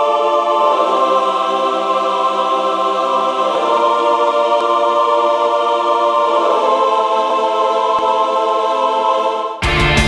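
Background music: slow, sustained chords that change every few seconds. About nine and a half seconds in it cuts abruptly to loud rock music with a steady drum beat.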